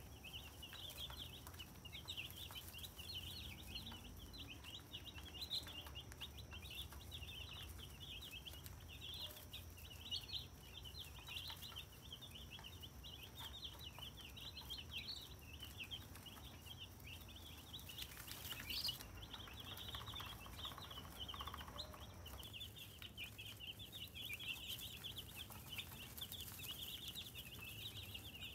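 A brood of baby chicks peeping nonstop, many high, short chirps overlapping, over a steady low hum.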